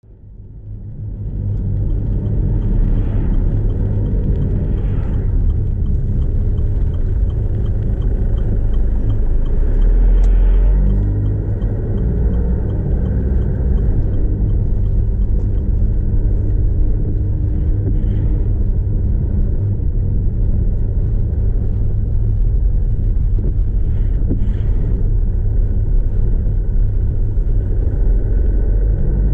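Cabin rumble of a Land Rover Freelander 2 with its 2.2-litre TD4 diesel, driven steadily, engine and tyre noise heard from inside the car. The sound fades in over the first second or so, swells briefly in the low rumble about ten seconds in, and a faint regular ticking runs for a few seconds before that swell.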